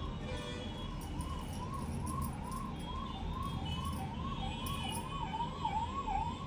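An emergency vehicle's siren, one tone rising and falling in pitch about twice a second and growing a little louder near the end, over a low steady rumble.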